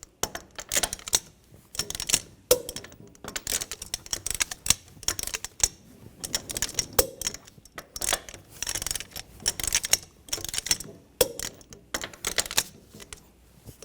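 Torque wrench ratcheting the wheel's lug nuts down to 83 ft-lb in a cross pattern: runs of quick ratchet clicks, broken by a louder single click three times, about every four to five seconds, as each nut reaches torque.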